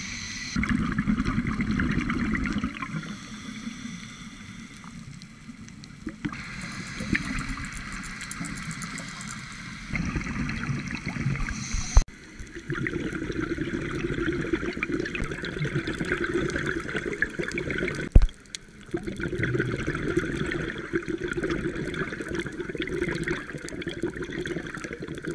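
Underwater noise of scuba divers' exhaled bubbles gurgling and trickling from their regulators. The character of the noise jumps abruptly a few times where clips are spliced, with a sharp click about halfway through and a louder one about two-thirds of the way in.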